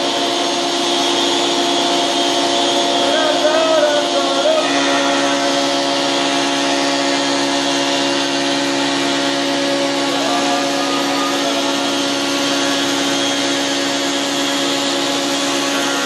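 Woodworking planer-thicknesser running with a steady machine hum and hiss, together with its dust extraction; its note shifts about five seconds in. A person's voice rises briefly over the machine twice.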